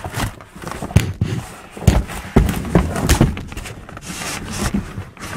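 Irregular thuds and knocks of a cardboard box being jostled, heard from inside the box as it is moved.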